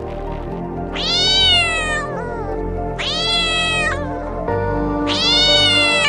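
A cat meowing three times, long drawn-out meows that rise and fall in pitch, over steady background music.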